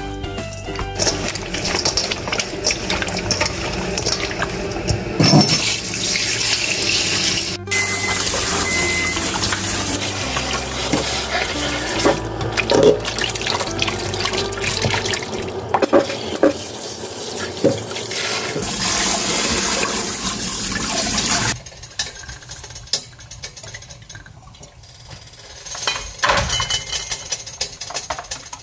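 Water rushing into the sink and splashing as raw pork pieces are rubbed and rinsed by hand in a stainless steel bowl. The rush of water stops suddenly about 21 seconds in, leaving lighter splashes and small knocks.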